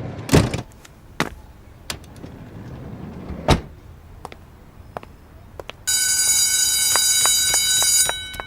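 A few knocks and thuds with scattered clicks, then, about six seconds in, a loud steady buzzing tone that lasts about two seconds and cuts off suddenly.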